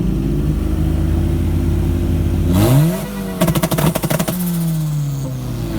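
Car engine running, then revved hard about halfway through. About a second of rapid popping crackle follows, and then the revs fall slowly away.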